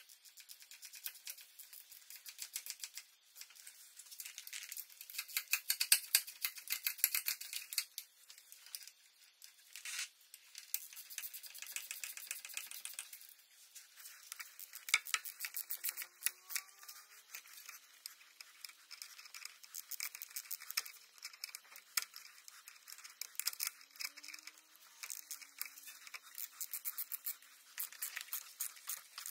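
Rapid clicking and rattling of hand tools in bursts, thickest in the first half, with a few faint short squeaks later on.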